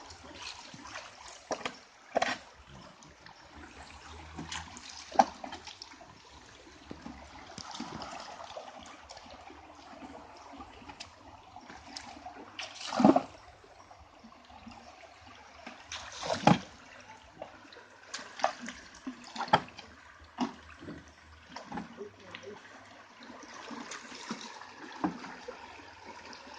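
River water running and trickling around a raft, with sharp splashes and knocks every few seconds, the loudest about halfway through and again a few seconds later.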